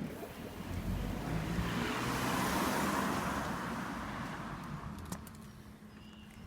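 A motor vehicle passing by, its tyre and engine noise swelling to a peak two or three seconds in and fading away.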